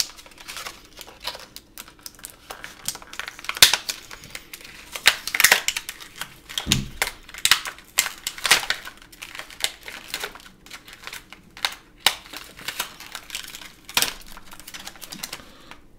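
Clear plastic packaging of small toy wrestler figures crinkling and crackling as it is torn open by hand, in irregular sharp clicks and rustles.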